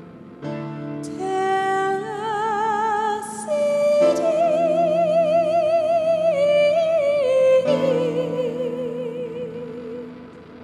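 Contemporary operatic song: a high voice sings long held notes with wide vibrato, climbing step by step and then falling back, over sustained keyboard chords.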